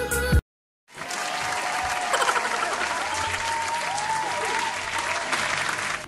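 Intro music cuts off in the first half second. After a short silence, clapping and cheering start up and keep going, with a few high rising-and-falling cries over them.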